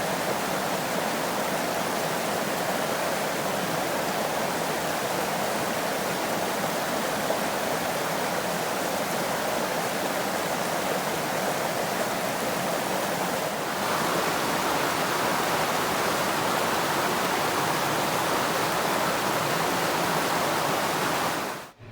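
Creek water flowing steadily, a continuous rushing. About two-thirds of the way through it becomes a little louder and higher-pitched, and it cuts off abruptly just before the end.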